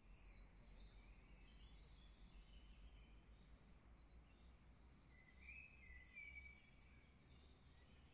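Near silence with faint songbirds singing in the distance, one phrase a little louder about five to six seconds in, over a low steady rumble.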